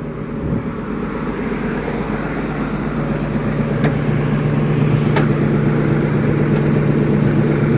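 Caterpillar 320D excavator's diesel engine running steadily, a constant hum that grows gradually louder, with a few faint ticks.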